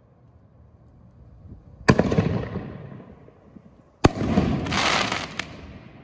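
4-inch canister shell fireworks: two sharp booms about two seconds apart, each dying away slowly. The second comes as the shell breaks in the sky and is followed by about half a second of crackling.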